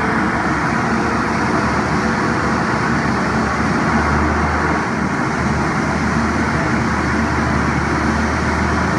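Turboprop engines of a Dornier 228 running steadily on the apron, a loud even engine noise with a deep hum that strengthens about four seconds in.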